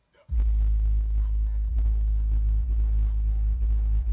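12-inch subwoofer in a slot-ported box tuned to 34 Hz playing loud, deep bass, which cuts in again just after a brief silence at the very start.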